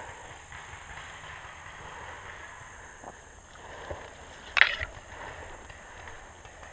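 Steady rustling and movement noise with a couple of faint clicks, then one sharp, loud crack a little past halfway, followed quickly by two fainter ones.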